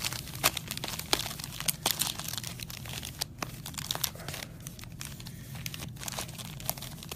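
Sealed trading-card packs being shuffled around by hand, their wrappers crinkling and rustling with many small irregular clicks.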